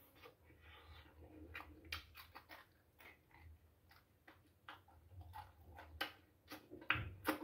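A person eating cooked fish by hand: faint chewing and wet mouth smacks, made of scattered short clicks, with a few louder smacks near the end.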